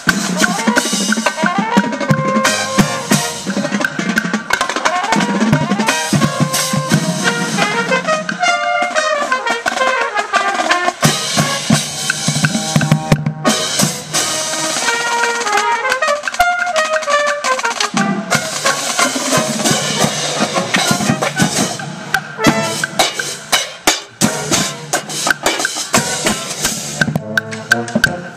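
Drum and bugle corps playing: a brass horn line of trumpets, mellophones and tuba over snare drums and cymbals. Quick runs of notes sweep up and down about eight and again about sixteen seconds in, with a brief break near the middle.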